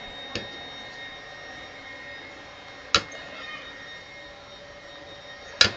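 Three sharp clicks or knocks over a steady faint whine. The second comes about three seconds in, and the last, near the end, is the loudest.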